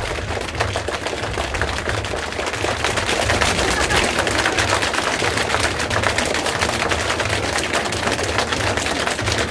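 A group of people together imitating heavy rain by hand: a dense, continuous patter of quick taps and clicks, with a low pulsing rumble underneath.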